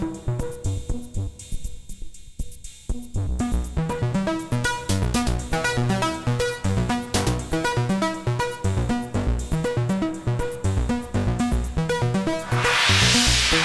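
Techno played live on hardware synthesizers and a drum machine: a steady kick-drum pulse under sequenced synth bass and lead lines. The highs drop away for a few seconds near the start, leaving mostly kick and bass, and near the end a hissing noise riser swells in over the groove.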